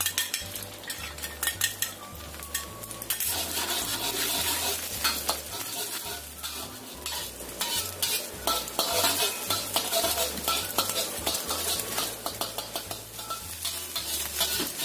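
Beaten egg sizzling in hot oil in a wok while it is stirred and scraped to scramble it. For about the first three seconds quick, rapid utensil strokes click against the pan, then the sizzle grows louder and fuller, with scattered scrapes and ticks.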